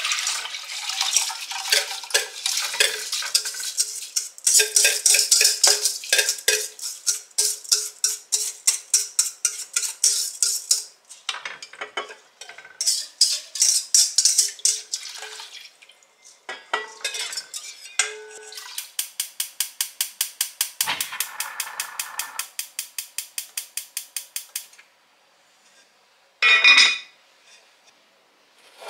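Liquid poured into a pot, then a metal utensil stirring briskly inside it, clinking against the pot about five times a second in long runs with short pauses. A single short ringing clank comes near the end.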